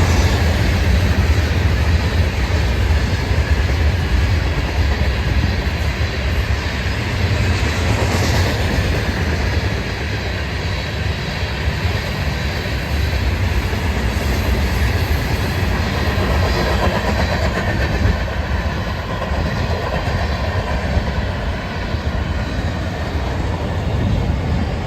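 Florida East Coast Railway freight train's cars rolling past on the rails, a steady loud rumble of wheels on track.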